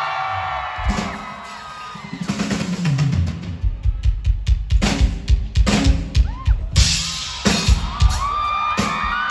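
Live rock drum kit playing a solo: after a held sung note fades, kick, snare and tom hits start about two seconds in and build to a dense, rapid run of strokes from about halfway through.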